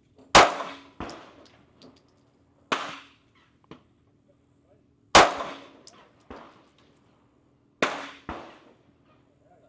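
Canik METE MC9L 9mm pistol shots, slow aimed fire: four sharp reports a few seconds apart, each with a short decaying echo, and fainter shots in between.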